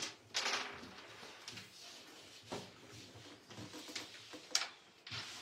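Wooden carrom coins clicking against each other and on the board as they are handled and set up: about half a dozen separate sharp clacks, spread out.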